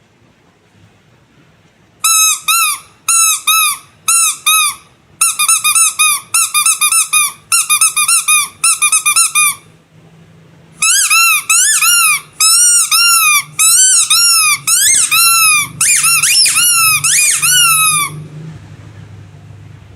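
Squeaky rubber animal toy squeezed over and over, each squeeze a short, high squeak that rises and falls in pitch. The squeaks start about two seconds in, in quick pairs and runs, stop for about a second, then come faster and nearly without a break until they end a couple of seconds before the close.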